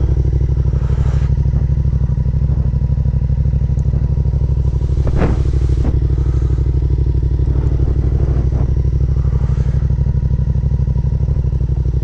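Yamaha MT-07's parallel-twin engine idling steadily, with an even, fast pulse.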